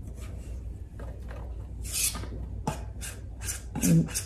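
Hand scraping crumbly butter-and-flour crust dough out of a stainless steel mixing bowl into a metal baking pan: a run of short scrapes and rubs as the clumps drop into the pan. A brief vocal sound near the end.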